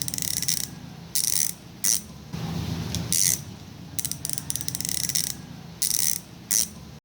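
Sword six-pawl bicycle hub freewheeling, its pawls ratcheting in a loud, fast, high-pitched buzz of clicks. It comes in about eight short bursts with pauses between them.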